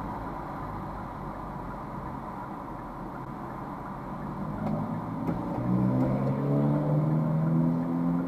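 Car cabin noise in slow freeway traffic. About five seconds in, a nearby car's engine comes up loud with a steady, slightly rising note.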